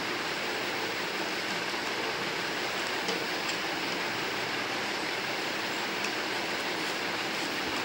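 Steady hiss of background room noise, with a few faint taps as cardboard is folded and pressed flat by hand.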